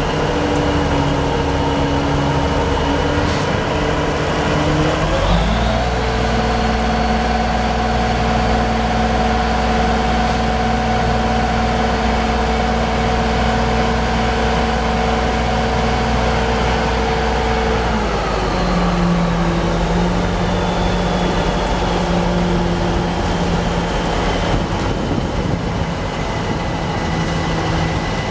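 Heavy diesel engine running, its pitch stepping up about five seconds in as it is revved and held at higher speed for about twelve seconds, then dropping back toward idle.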